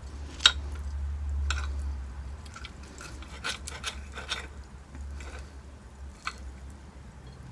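Close-miked eating sounds of pasta: scattered small clicks and wet mouth sounds of chewing, spaced a second or so apart, over a low steady hum.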